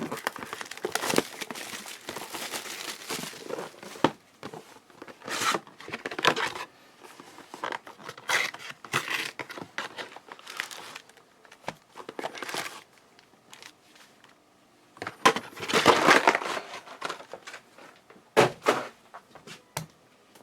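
Plastic wrapping on a box of trading cards and its packs being torn open and crinkled by hand, in irregular bursts of crackling and rustling.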